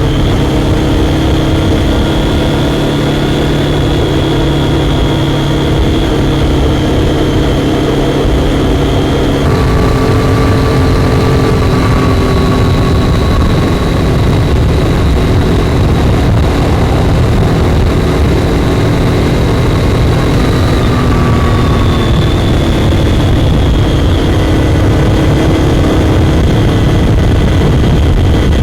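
Triumph Daytona 675's three-cylinder engine running steadily under way, with wind and road noise underneath. The engine note changes once, about ten seconds in.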